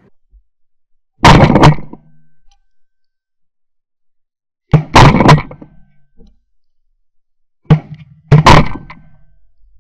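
Shotgun blasts fired at flying Canada geese, loud and close: one shot about a second in, a quick run of shots around five seconds, and more near the end, with dead silence between the clips.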